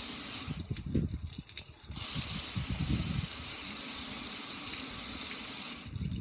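Stream of water splashing onto the metal lid of a gas grill and running off onto concrete, a steady hiss that drops away briefly about a second in, with low irregular thumps underneath.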